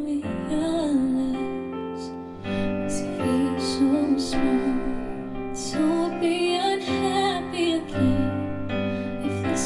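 Recorded music playback: a female singer with instrumental accompaniment, demonstrating the Ferrum Wandla DAC's digital filters. The music changes abruptly a couple of times as it cuts between filter settings.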